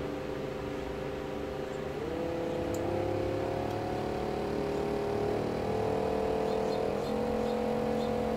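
Small DC motor running with a steady whine whose pitch steps up twice, about two seconds in and again about seven seconds in, as its supply voltage is raised from about 7 to 13.4 volts and it speeds up.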